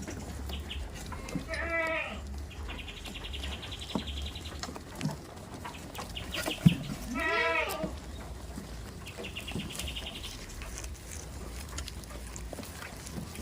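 Goats bleating, two wavering calls about two seconds and seven seconds in. Between the calls comes a high, rapidly pulsing buzz, twice, and a single sharp click just before the second bleat.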